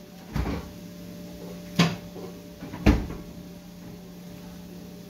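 Refrigerator door and contents being handled: three knocks about a second apart as the door is worked and the meat is put inside, the last one the loudest. A steady hum runs underneath.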